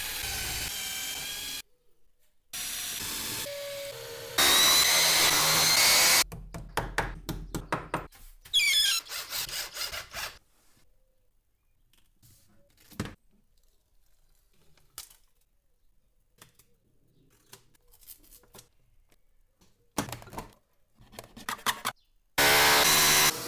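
Hand-held power drill running in several short runs of one to two seconds, with a motor whine. Between the runs come scattered knocks and clicks of boards and parts being handled.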